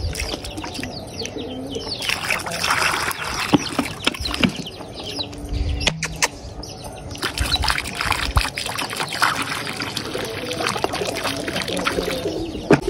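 Water poured from a plastic bottle into a clay pot, splashing and trickling, with pigeons calling at times.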